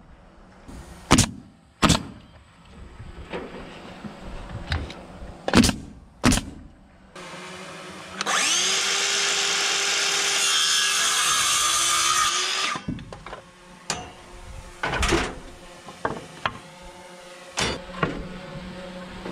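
Handheld power saw spinning up and cutting through a wooden trim board for about four to five seconds, its motor note rising and then holding steady through the cut. Several sharp knocks come before and after the cut.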